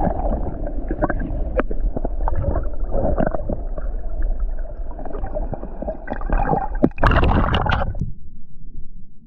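Water gurgling and sloshing right at the camera microphone as a fish is released back into the sea, with small clicks and splashes, loudest about seven seconds in. About eight seconds in the sound cuts suddenly to a dull, muffled rumble.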